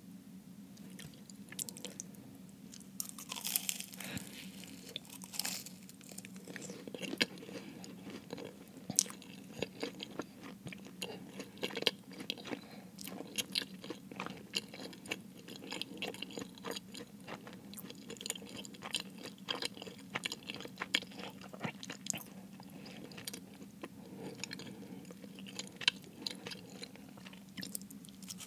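Close-miked chewing of a Jamaican beef patty, the flaky pastry crust crunching and crackling in many small, irregular crisp clicks.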